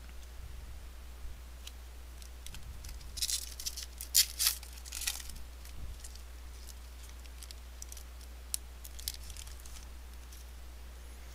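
A pack of baseball cards being opened and handled: the pack wrapper crinkles and tears in a cluster of sharp rustles a few seconds in, the two loudest about four seconds in, followed by scattered light clicks of cards being shuffled and set down.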